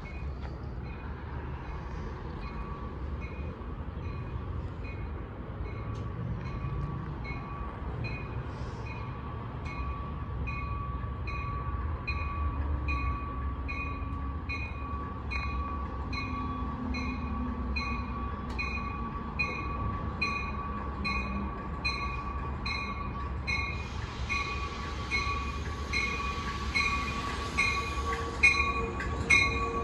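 Amtrak Keystone Service push-pull train approaching slowly at restricted speed, cab car first. Its bell rings steadily about twice a second over a steady whine, the rumble of the wheels grows as it nears, and a hiss joins in during the last few seconds.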